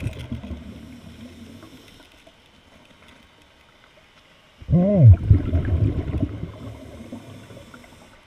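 Two exhalations through a scuba regulator heard underwater: low bubbling rumble, the first fading over the opening second or so, the second starting about four and a half seconds in with a brief tone that rises and falls, then fading.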